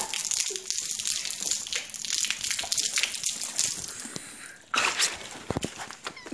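Water splashing and sloshing as it is thrown over a person, with knocks and rustles from the jostled phone. A fresh splash comes in suddenly near the end.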